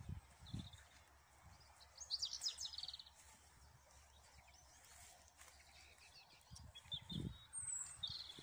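Small songbirds chirping and singing, with a rapid trilled phrase about two seconds in the loudest and more chirps near the end. A few low thumps sound under it.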